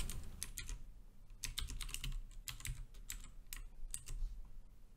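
Typing on a computer keyboard: quiet, irregular keystrokes in short runs with brief pauses between them.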